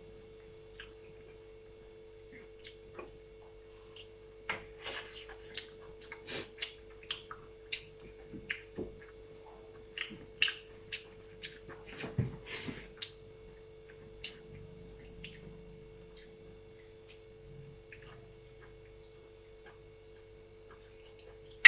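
Mukbang eating sounds: scattered short wet clicks and smacks of chewing and of food being handled on a plate, busiest in the middle and thinning out near the end, over a steady low hum.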